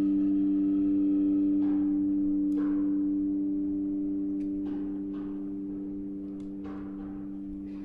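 Violin and cimbalom duo playing slowly: the violin holds a long, steady low double stop that slowly fades, while soft struck notes of the cimbalom sound over it several times.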